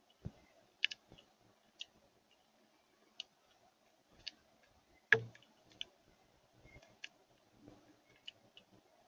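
Birds pecking at a bird feeder: irregular sharp taps and clicks, with one louder knock about five seconds in.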